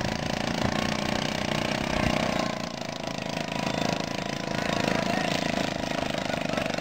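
An engine running steadily at idle, a fast even chugging.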